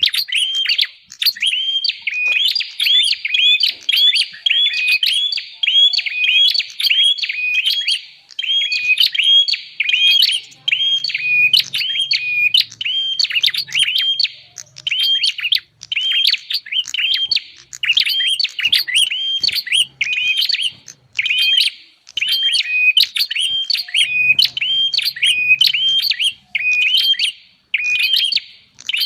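Prenjak (prinia) lure call: a fast, continuous series of sharp, high chirps at about two a second, with brief pauses between runs.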